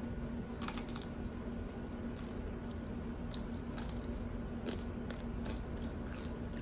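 A person chewing a mouthful of Burger King taco, with faint scattered crunches and mouth clicks over a steady low hum.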